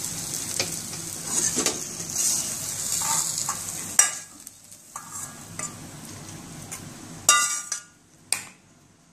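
A steel spatula stirs and scrapes potato-vegetable masala sizzling in a hot steel kadai. About four seconds in there is a sharp knock, then quieter scraping as the masala is pushed out into a steel bowl, with a ringing metal clink near the end.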